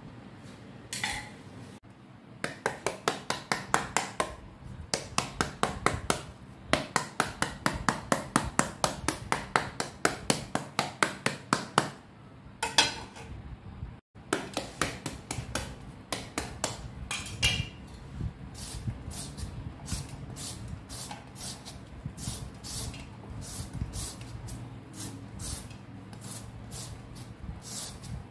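Green papaya being cut and shredded by hand with a blade: a long run of quick, even strokes, about four or five a second, then after a short break slower scraping strokes of a shredder, about two a second.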